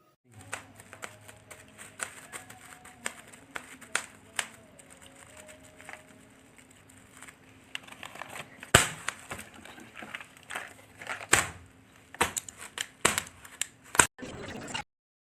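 Plastic packaging being handled and unwrapped: irregular crinkling and rustling with sharp crackles and snaps, the loudest near the middle and toward the end.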